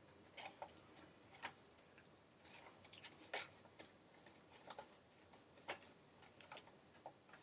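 Faint, irregular mouth clicks and smacks of someone chewing a piece of beef jerky so tough it can barely be chewed.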